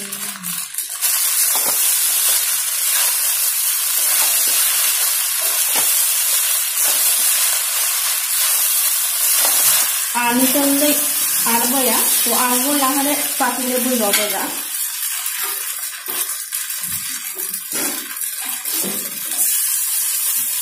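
Polao frying in a metal kadai, a spatula stirring and scraping it through the pan over a steady sizzling hiss. A person's voice comes in for a few seconds about halfway through.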